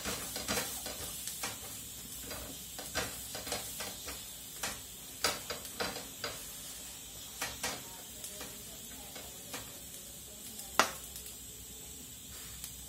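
Lachha paratha frying in ghee in a hot pan, sizzling steadily, while a wooden-handled presser presses it against the pan with irregular light knocks and scrapes. One sharper knock comes near the end.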